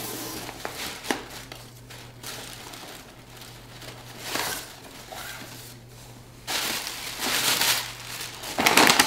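Tissue paper and a brown paper gift bag rustling and crinkling as a ribbon is untied and the tissue pulled out, in several spells, the loudest about two-thirds of the way in. A steady low hum runs underneath.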